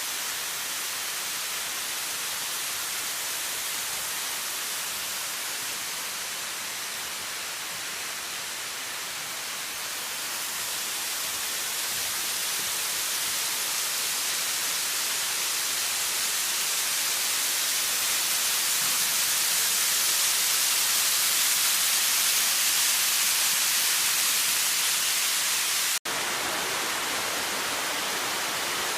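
Waterfall: a steady rush of falling water that grows louder through the middle and breaks off sharply near the end before carrying on.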